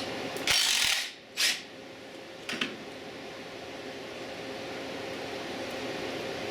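A pneumatic shop tool hissing in two short bursts, the first about half a second long and the second briefer, as a mower blade is being taken off. A small click follows, then a steady low shop hum.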